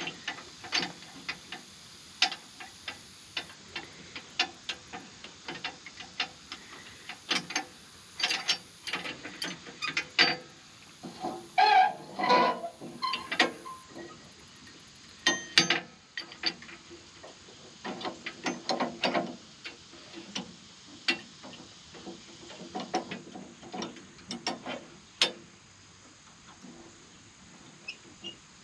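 Metal parts of a tractor's three-point hitch and finish-mower linkage being handled while hooking the mower up: irregular metal clicks and clanks, with louder clanking about twelve and fifteen seconds in.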